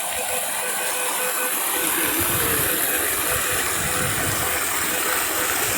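Steady rushing of flowing water at a small waterfall, with low rumbling knocks joining in about two seconds in.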